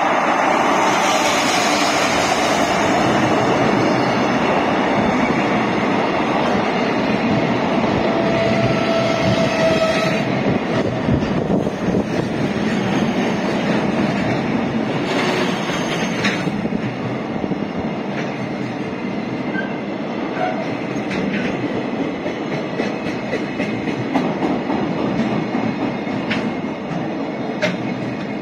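Freight train rolling past close by: a loud, steady rush of wheels on rail. A brief wheel squeal comes about eight seconds in, and scattered clacks over rail joints follow as the wagons go by, the noise slowly easing.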